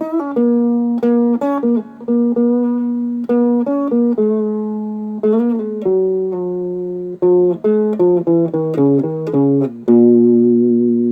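Music: a plucked guitar melody played note by note over a held bass note, ending on a chord about ten seconds in that rings out and fades.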